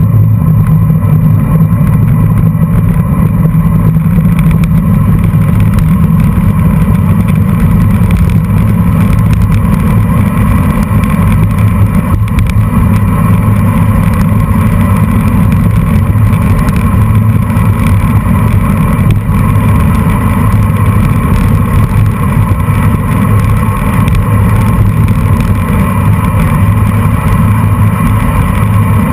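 Steady low rumble of wind buffeting a bicycle-mounted camera's microphone, mixed with tyre and road noise from road bikes rolling along in a race bunch.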